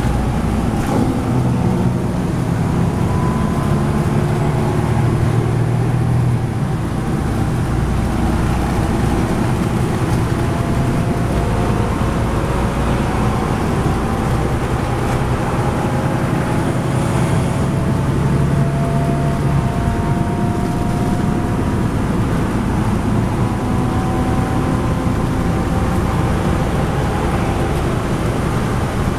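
Interior ride noise of a 2010 NABI 40-SFW transit bus cruising on a highway, heard from the rear seats: its Cummins ISL9 diesel engine running steadily under road and tyre noise. Faint whining tones rise slowly in pitch several times.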